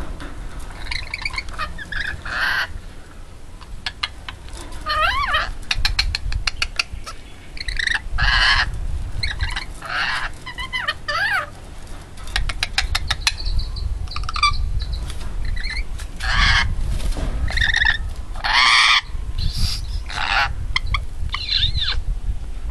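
A rainbow lorikeet calling: a string of short, harsh screeches with warbling chatter and bursts of rapid clicking between them.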